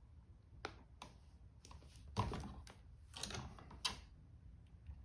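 Faint scattered clicks and short rustles of electrical wire and hand tools being handled at an outlet box.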